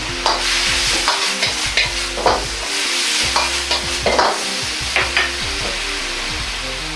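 Meat and vegetables sizzling in a hot wok as they are stir-fried, the metal ladle clacking against the wok again and again. A steady low hum runs underneath.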